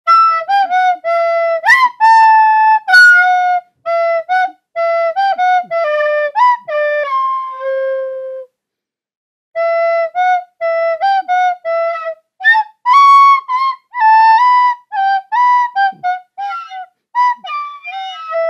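A melody played on a flute-like wind instrument: a run of short notes that slide up into pitch, then a long note that sags downward and fades out. After about a second of silence the tune starts again.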